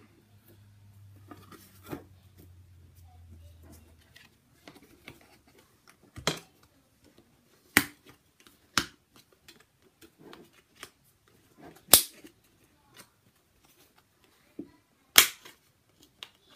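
Handling noise as a cardboard backboard is fitted into a wooden picture frame: light rubbing and taps, with five sharp clicks a second or few apart, the loudest near the end.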